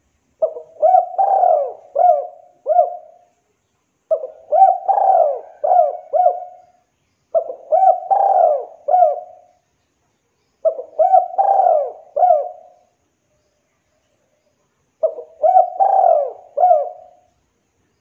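Spotted dove cooing: five phrases a few seconds apart, each a quick run of several coo notes.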